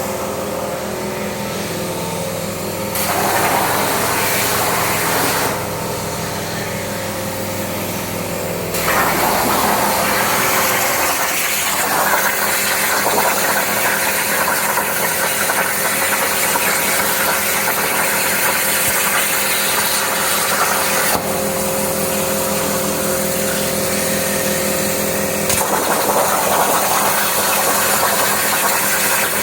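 CNC plasma cutting machine at work: the torch's harsh hiss switches on and off several times, with a couple of pauses, over the machine's steady hum.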